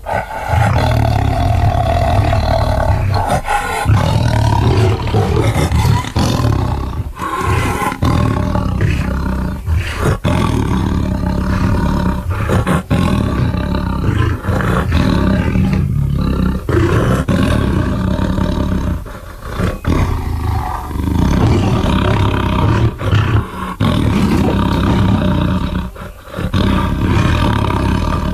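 Dinosaur sound effects for an Acrocanthosaurus: a string of long, deep roars and growls with brief gaps between them.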